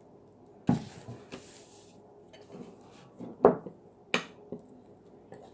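A metal spoon stirring slime in a ceramic bowl, knocking against the bowl three times, loudest about three and a half seconds in, with a short rustle about a second in.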